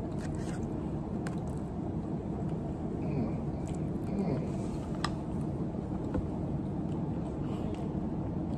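A plastic fork clicking a few times against a plastic takeout container during eating, over a steady low background hum.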